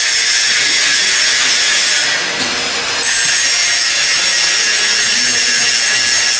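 A power tool running steadily, a continuous high-pitched noise with no breaks.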